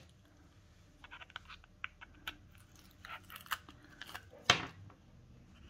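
Hands handling and pressing cardstock photo mats onto a scrapbook page: scattered soft paper rustles and light taps, with one louder crinkle about four and a half seconds in.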